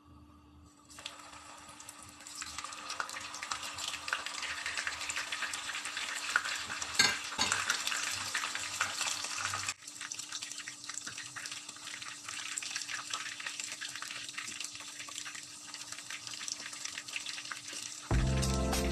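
Pork kikiam sizzling as they fry in hot oil in a frying pan, the frying starting about a second in and growing louder over the next few seconds. A short knock sounds about seven seconds in.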